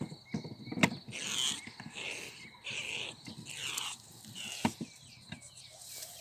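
Rustling and handling noises with two sharp clicks, one about a second in and one near the end.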